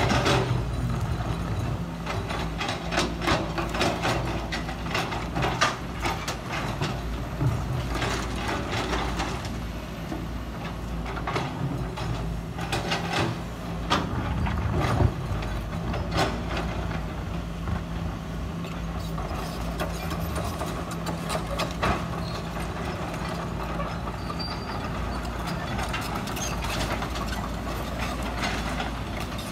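Sumitomo hydraulic excavator's diesel engine running steadily while its bucket digs into laterite soil, with many short clanks, knocks and scrapes of the bucket teeth on stony earth. The knocking thins out about two-thirds of the way through, leaving the steady engine hum as the loaded bucket swings toward the dump truck.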